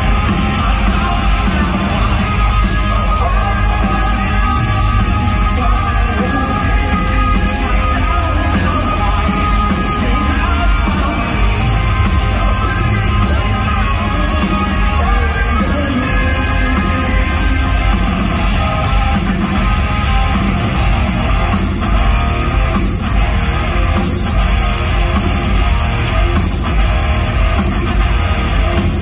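Live hard rock band playing loudly: distorted electric guitars, bass and drums with sung vocals, heard from the audience in a large hall.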